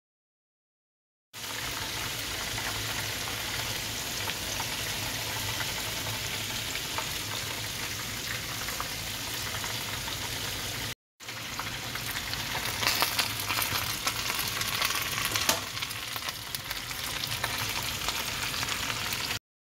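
Food sizzling in hot oil in a skillet, a steady frying hiss that begins a little over a second in. After a brief break near the middle, a second stretch of frying follows, with louder crackling and spattering for a few seconds.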